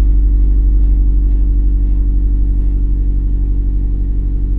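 Honda Accord engine idling steadily, freshly started after a spell of cranking without catching, its overall level easing down slightly.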